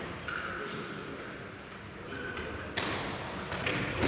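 Futsal ball being kicked and bouncing on a wooden sports-hall floor, sharp thuds echoing in the large hall, the loudest a little before three seconds in.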